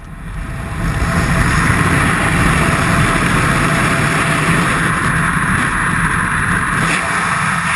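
Loud, steady wind rushing over the microphone, building up over the first second, then holding.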